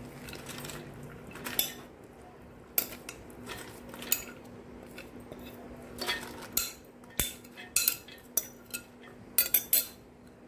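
A glass bowl clinking and knocking against a metal pressure cooker as marinated mutton and soaked chana dal are tipped into it: irregular sharp clinks, several in quick succession near the end, over a faint steady hum.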